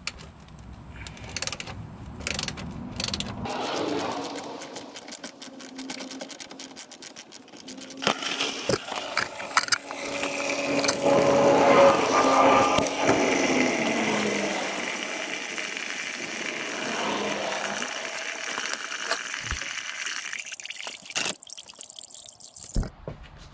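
Engine coolant draining out of an opened radiator drain plug and splashing into a container. The flow starts a few seconds in after some clicks and knocks, builds to a loud splashing, then tapers off, with a couple of knocks near the end.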